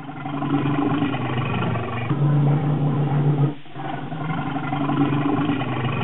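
Bear growling: two long, low, rough growls with a brief break about three and a half seconds in.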